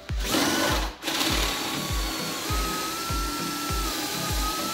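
Cordless drill with a 6 mm bit boring a pilot hole into the wooden workbench top, its motor whining: a short run at the start, then steadily from about a second in. Background music with a steady beat underneath.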